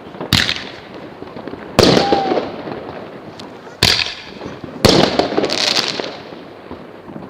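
Fireworks going off: four sharp bangs about one to two seconds apart, each trailing off in a crackle and echo.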